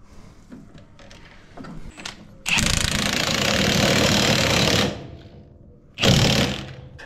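Impact wrench hammering on a knife bolt of a corn header's stalk chopper, in one run of a little over two seconds and then a short second burst about a second later.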